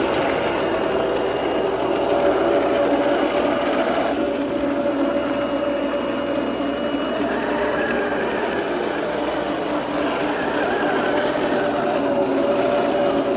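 Henglong 1/16 RC M1A2 Abrams tank driving: a steady whirring whine from its electric drive motors and steel gearbox, with the rattle of its metal tracks.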